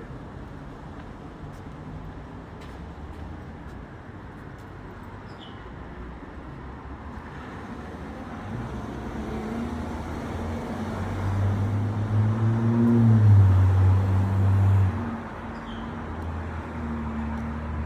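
Road traffic: a motor vehicle's engine grows louder over several seconds, is loudest about two-thirds of the way through, then drops away suddenly, leaving lower traffic noise.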